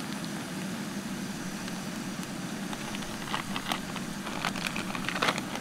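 Steady rushing of a gas canister stove burner with a pan of oil and spices frying on it. From about three seconds in come short crinkles and ticks of a plastic bag being picked through.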